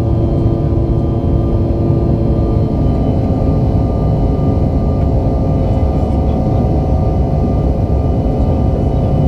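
Cabin noise of a Bombardier CRJ-900LR: a steady drone of its rear-mounted turbofan engines and airflow, heard from inside the cabin. The engine tones shift about three seconds in.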